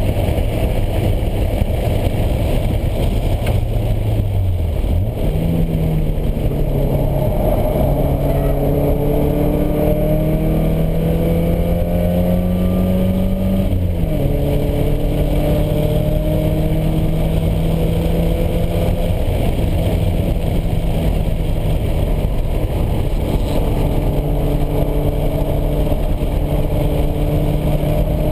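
Cabin sound of a 1986 Porsche 944 at track speed: its normally aspirated 2.5-litre inline-four pulls up through the revs with a slowly rising pitch, drops sharply at a gear change about halfway, then climbs again. Loud wind and road noise run underneath.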